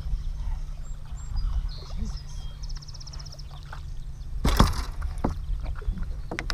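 Wind rumbling on the microphone, with a brief run of rapid ticking about three seconds in. Then one loud slap as a bass is swung out of the water and aboard, followed by a few sharp knocks as the fish hits and flops against the boat deck.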